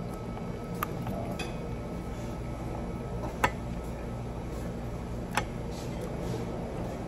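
Cutlery clinking against plates during a meal: three sharp clinks, the loudest about halfway through, over a steady low room hum.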